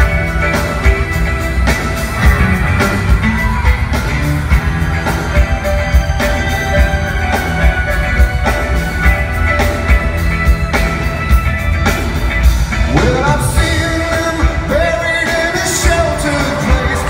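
Live rock band playing loudly in an arena: drums, bass, guitars and keyboards with a steady beat. A male singer's voice comes in near the end.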